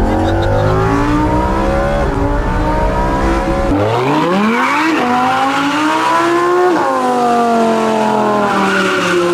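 Lamborghini engine pulling hard, its pitch climbing and then dropping sharply at gear changes, twice. Near the end the pitch falls away as it slows.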